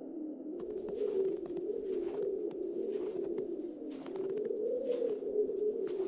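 Wind howling, its pitch slowly wavering up and down. From about half a second in, irregular crunches like footsteps in snow sound over it.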